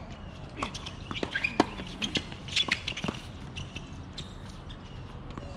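Tennis balls being struck by racquets and bouncing on a hard court in a quick exchange: a cluster of sharp pops from about half a second to three seconds in, the loudest about a second and a half in.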